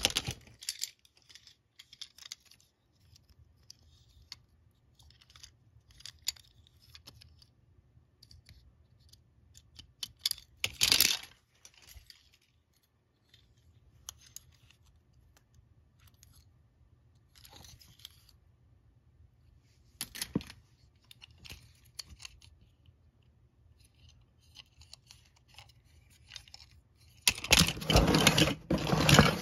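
Die-cast Hot Wheels cars clinking and clicking against each other and the cardboard as they are picked out of a box, in scattered short bursts with quiet gaps. Near the end the cardboard box scrapes and rustles loudly as it is grabbed and shifted.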